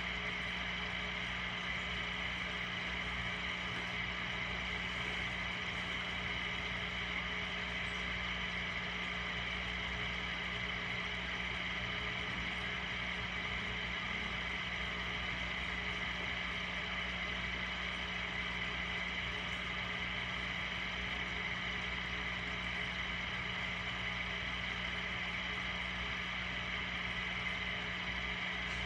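A small motor's steady hum, with a constant low tone and a higher whine over it.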